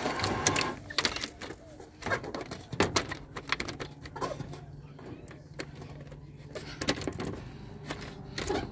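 Electric roller shutter motor running as the shutter curtain winds down, a steady low hum with irregular clicks and knocks from the curtain as it is guided down through its side tracks by hand.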